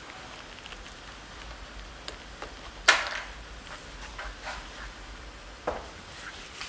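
A 20%-infill PLA 3D-printed block, heated to 130 °C, cracks sharply about three seconds in as it gives way under the foot of a machine weighing over 50 kg. Light clicks and rustles of gloved hands handling it come before and after, with a smaller knock near the end.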